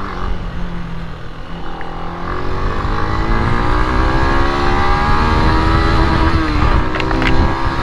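Benelli BN 125's single-cylinder engine pulling hard, its pitch climbing steadily from about two seconds in, with a brief dip about six seconds in, over a steady rush of wind. Two short clicks sound about seven seconds in.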